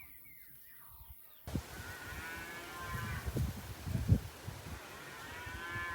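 Cattle mooing: two long, drawn-out calls about three seconds apart, with low thumps on the microphone between them. Faint birds chirp in the first second and a half.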